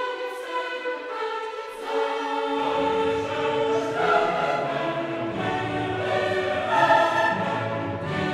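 Background music: a choir singing in a classical, operatic style, with lower parts coming in about two and a half seconds in.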